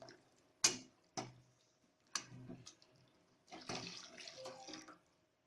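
A metal ladle knocks sharply against the cooking pan three times, then about a second and a half of faint liquid sloshing and splashing as hot jaggery water is stirred quickly into the ghee-roasted flour to keep it from forming lumps.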